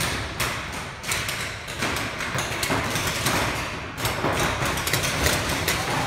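Paintball markers firing: sharp pops, scattered at first, then a rapid run of several shots a second from about two-thirds of the way in.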